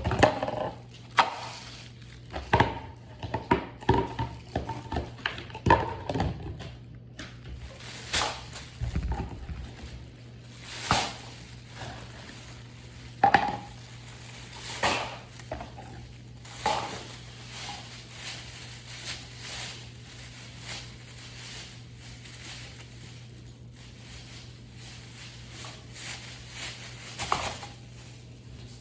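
Irregular knocks, taps and clicks of objects being handled, thickest in the first few seconds and sparser after, over a steady low hum.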